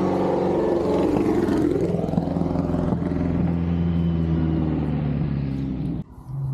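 Historic rally car's engine running hard along the road, its note dipping and climbing again about a second and a half in, then holding steady; the sound cuts off suddenly near the end.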